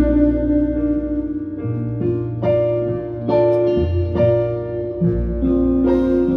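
Electric piano or keyboard playing sustained chords over a bass line that changes about once a second.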